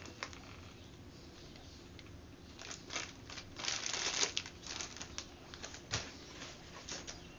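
Clear plastic bag crinkling in short, irregular bursts as it is handled and pulled open, starting a couple of seconds in.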